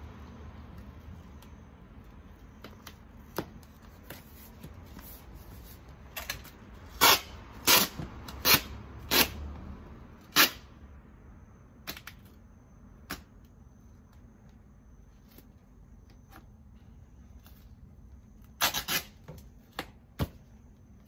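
Goods being handled and packed into a cardboard box: a run of about five sharp, crisp knocks and rustles about seven seconds in, then another quick cluster near the end, over a low hum.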